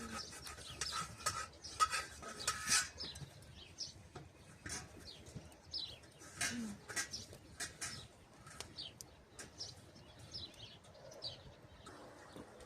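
Small birds chirping in short, falling calls repeated through, over rapid clicks and rubbing or scraping in the first few seconds.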